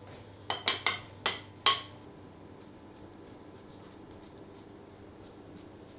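A small metal whisk clinking against a mixing bowl while mixing a protein and rice-cereal mix. There are five sharp knocks in the first two seconds, the last the loudest, then faint, quick ticks.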